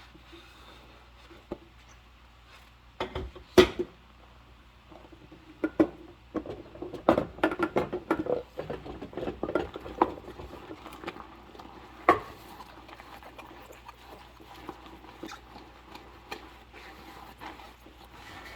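Dishes being handled and scrubbed with rubber-gloved hands: scattered knocks of dishware and short squeaks of the gloves on wet surfaces, busiest a few seconds past the middle.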